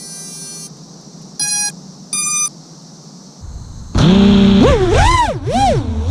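Two short electronic beeps, then about four seconds in the brushless motors of an FPV racing quadcopter spin up. Their whine swoops up and down in pitch as the throttle is worked.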